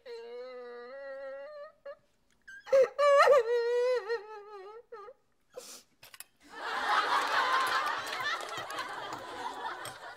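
A woman wailing in two long, wavering, drawn-out cries, then several seconds of dense, noisy sound.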